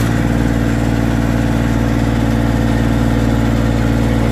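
Massey Ferguson 241 DI tractor's three-cylinder diesel engine running steadily at high revs, its throttle opened just before and held.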